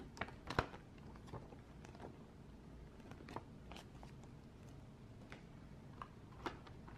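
Paper leaflet rustling and crinkling as it is handled and folded, with scattered light clicks and taps. The sharpest click comes about half a second in.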